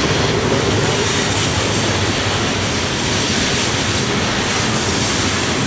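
A loaded coal train's hopper cars rolling past on the rails: a loud, steady rumble with no break.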